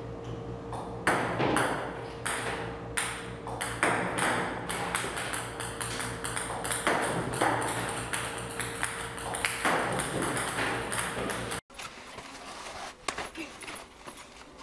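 Table-tennis balls fired by a ball-launching robot, clicking and pinging as they bounce on the table, several a second and irregular, over a steady hum. They cut off abruptly a few seconds before the end, leaving only faint sound.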